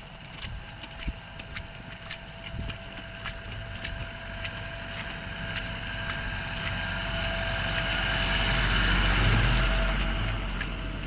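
A motor vehicle approaching and passing, its engine and tyres growing louder to a peak about nine seconds in and then fading. Light irregular clicks of footsteps in snow run under it.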